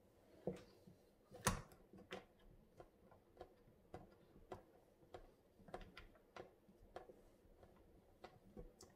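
Screwdriver tightening the screw under a mixer tap's handle, giving a faint click about every 0.6 seconds with each turn. The loudest click comes about a second and a half in.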